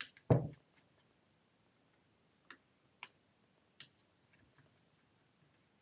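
A knock just after the start, then a few sharp, light clicks spaced about half a second to a second apart: small parts of a rotary hammer drill's handle and cable being handled during a repair.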